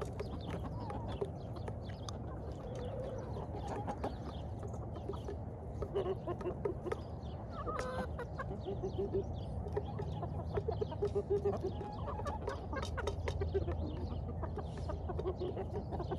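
A flock of domestic chickens, hens and roosters, clucking as they feed together on spilled food. Short low clucks come in small runs, mixed with many short clicks.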